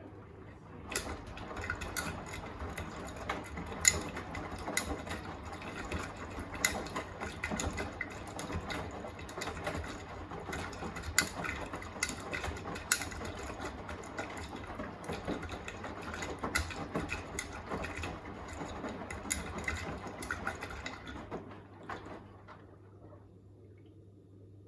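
Beko WTK104121A washing machine drum turning in the wash phase, the wet load tumbling with irregular sharp clicks and knocks. It starts about a second in and stops a few seconds before the end, over a low steady hum.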